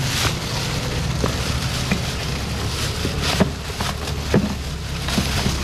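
A steady low mechanical hum with scattered light clicks and knocks over it.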